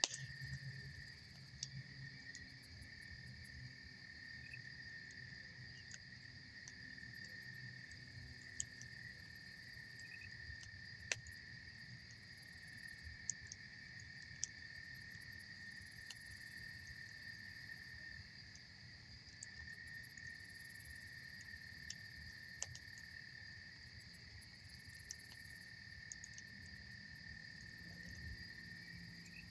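Campfire burning with scattered sharp pops and crackles of burning wood, the loudest about eleven seconds in, over a steady high, two-toned chirring of insects.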